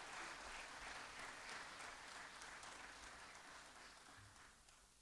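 Quiet audience applause, dying away.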